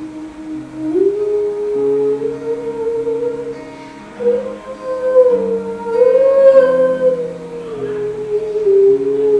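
Music: a slow melody held in long, smoothly sliding notes over low accompanying chords that change every second or two.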